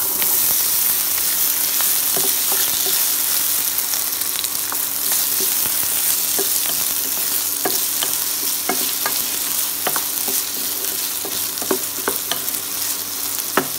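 Diced raw potatoes sizzling in hot oil in a nonstick kadhai, stirred with a wooden spatula that clicks against the pan now and then, with a sharper knock near the end.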